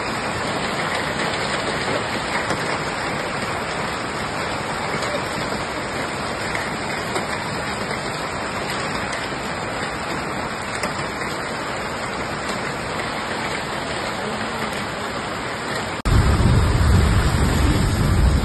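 Heavy rain mixed with hail pelting the ground, a dense steady hiss with faint ticks of hailstones. About sixteen seconds in it cuts off suddenly to a louder, deeper rushing noise.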